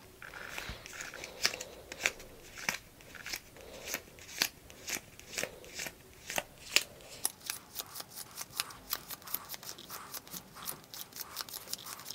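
A stack of cardboard game cards being thumbed through one at a time: a run of sharp card flicks, about two a second at first and quicker in the second half.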